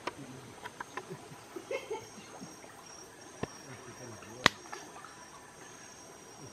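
Insects trilling steadily in the surrounding forest, with water splashing and a few scattered knocks as people wade through the creek; one sharp knock about four and a half seconds in is the loudest sound.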